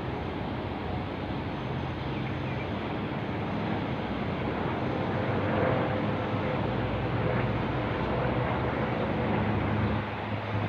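Steady outdoor urban background noise: a continuous hum and hiss with faint low droning tones, a little louder about halfway through.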